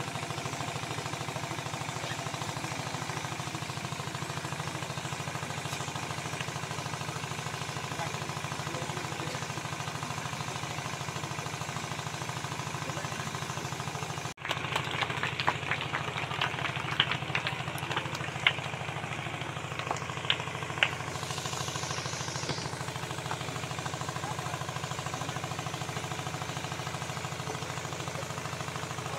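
A steady low engine-like drone runs throughout. About halfway through, a scatter of sharp clicks and snaps comes for several seconds, followed by a brief hiss.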